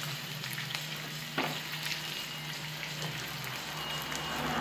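Flour-coated chicken drumsticks frying in shallow oil in a pan: a steady sizzle with scattered crackles over a low steady hum. A single sharp click comes about a second and a half in.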